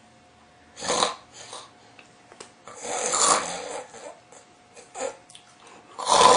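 A man snoring through an open mouth, loud: three main snores about two to three seconds apart with smaller breaths between them, the one near the end the loudest.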